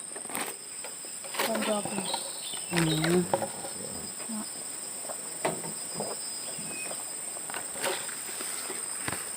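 Steady high-pitched drone of insects, with scattered light clicks and knocks and a short voice murmur about two to three seconds in.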